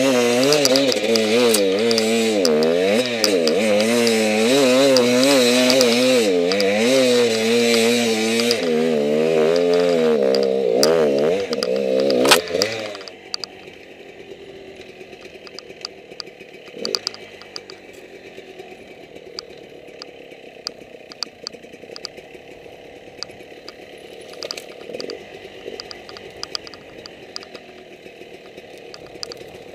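Enduro dirt bike engine revving hard, its pitch wavering up and down quickly as the throttle is worked over rough forest ground, then stopping abruptly about twelve seconds in. After that there are only faint clicks and rustling.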